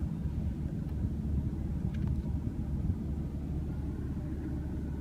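Steady low rumble of a 2016 BMW M3's twin-turbo inline-six idling, heard inside the parked car's cabin, with a couple of faint clicks.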